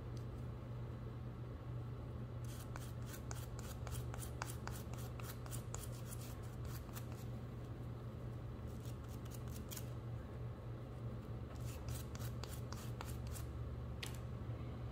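Rapid, light scratching strokes as old thread locker is scrubbed off a small screw and its threaded hole, in two runs with a pause about ten seconds in, over a steady low hum.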